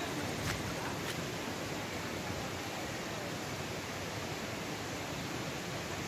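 Steady rushing noise of flowing and falling water, with two faint clicks about half a second and a second in.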